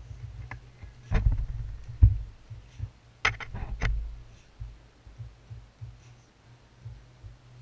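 Handling noise from hands turning a stainless steel tube mod fitted with a rebuildable atomizer: low thumps and rubbing, loudest about two seconds in. A quick run of light metal clicks follows at about three and a half seconds in.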